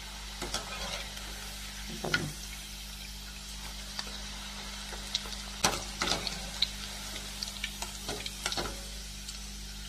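Potato sticks deep-frying in hot oil with a steady sizzle, as the foaming bubbling dies down near the end of frying. A wire spider strainer clicks and scrapes against the pan a dozen or so times, mostly in the second half, as it stirs and lifts the fries.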